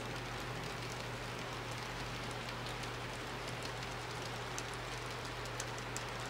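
HO-scale model freight train rolling along the track: a steady rushing rattle of small metal wheels on rail with scattered light clicks, over a steady low hum.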